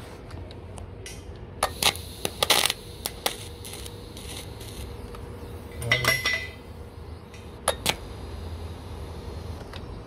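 Light metallic clinks and taps of a steel pipe and a thin welding filler rod being handled at a pipe joint during TIG welding: a cluster of sharp clicks about two seconds in, another near the middle, and two more a little later, over a faint steady background.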